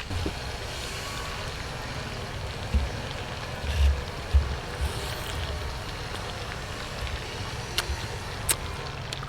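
Hot oil sizzling steadily as chicken drumsticks deep-fry, with a few low thumps in the middle and a couple of sharp ticks near the end.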